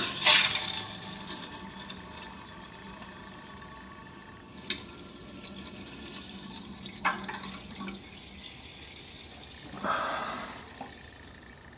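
Water rushing through a just-opened quarter-turn ball valve into a potable water expansion tank, strongest in the first couple of seconds and then settling to a faint steady hiss as the tank fills. A few small clicks and a brief rush follow later on.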